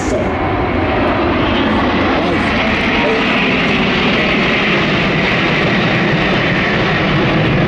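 Large multi-engine aircraft flying past low, its engines making a loud, steady noise. A higher hiss swells in about two and a half seconds in and holds.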